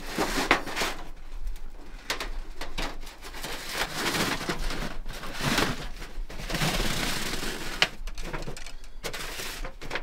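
Thin titanium stove-pipe sheet rubbing, scraping and squeaking under leather gloves as it is rolled into a tube and worked along its length, with a sharp metallic click about eight seconds in.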